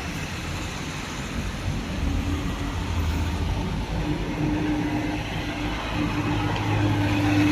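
Street traffic noise: a steady rush of vehicles, with a low steady hum coming in about halfway through.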